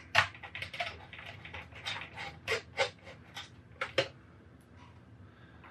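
Screwdriver working a screw inside the original Xbox's metal chassis: irregular light clicks and scrapes of the driver tip and the hand against metal and plastic, dying down near the end.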